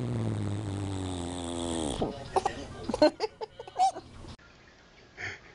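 A long, low, buzzing fart that sinks slowly in pitch and then drops off and stops about two seconds in. A few short, sharp sounds follow.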